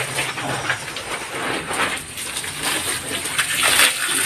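Water spraying from a garden hose's spray nozzle onto potted plants and wet concrete: an uneven splashing hiss.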